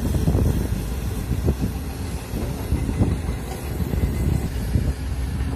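Komatsu PC200 hydraulic excavator running its diesel engine as it digs wet earth: a steady low rumble, with irregular knocks and clanks from the bucket and undercarriage.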